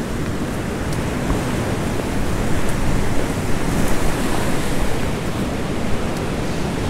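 Steady rush of sea waves breaking and washing over a rocky shore, swelling slightly in the middle.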